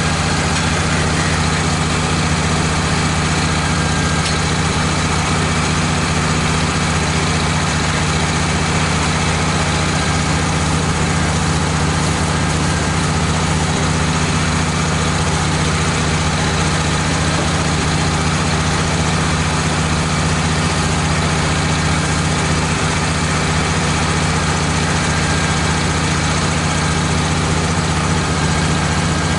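Wood-Mizer LT15 portable band sawmill running steadily, a constant engine hum with no change in pitch or load.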